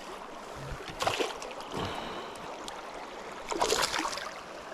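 River water running steadily, with two splashes at the surface: one about a second in and a longer one near the end, while a hooked smallmouth bass is being played in close.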